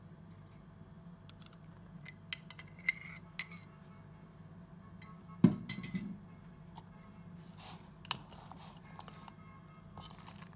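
A metal fork and spoon clinking and scraping against a salad bowl as a shredded cabbage salad is tossed with its dressing: a run of sharp clicks, with one loud knock about five and a half seconds in.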